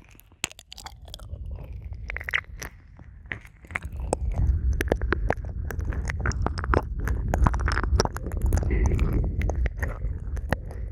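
Close-miked ASMR mouth sounds: wet licking and quick mouth clicks, as if eating at the ear. A low, muffled rumble joins in about four seconds in.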